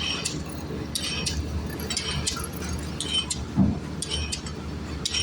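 Light metallic clinks in quick groups of two or three, about once a second, over a steady low hum, with one duller thud past the middle: metal being tapped or struck during a kelly bar repair.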